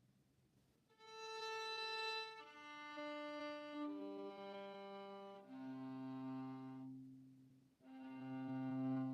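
A viola bowing its open strings one at a time in long sustained notes, starting about a second in and stepping down from the A string to the D, G and C strings, with the low C bowed twice near the end.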